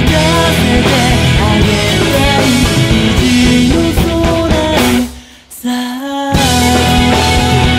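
Rock band recording with electric guitar and drum kit playing together. About five seconds in, the band stops for just over a second, leaving one held note, then comes back in all together.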